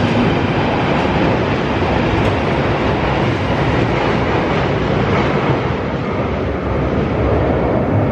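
A London Underground Northern line tube train running along the platform, a loud, steady rumbling noise that fills the station tunnel.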